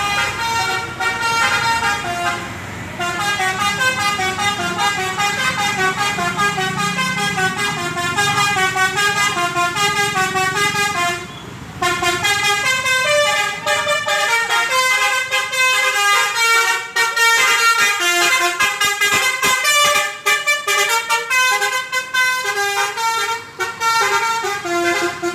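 Indonesian bus's basuri-type telolet horn, a multi-tone air horn, playing a melody of stepped notes. Brief pauses come about three seconds and about eleven seconds in.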